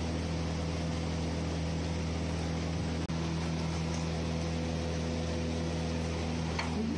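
Steady machine hum with a low drone and an even hiss, broken by a brief dropout about three seconds in.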